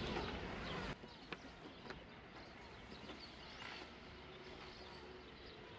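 Faint outdoor background with a low wind rumble on the microphone that cuts off suddenly about a second in. After that it is quiet apart from a few faint clicks as the rope and tape measure are handled.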